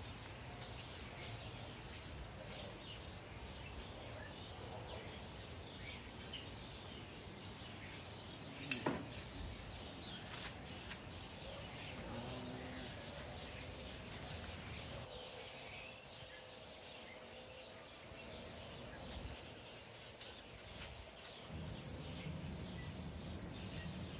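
Quiet outdoor ambience with birds chirping, a few short high chirps near the end. A single sharp click about nine seconds in.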